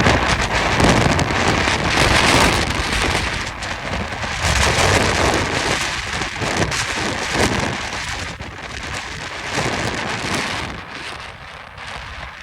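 Santa Ana wind gusting hard and buffeting the microphone, strongest in the first few seconds and easing off toward the end.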